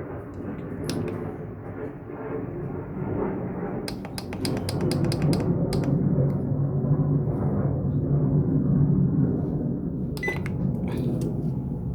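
Power XL air fryer's fan running with a steady hum. A quick run of clicks comes about four seconds in, and a few more near the end.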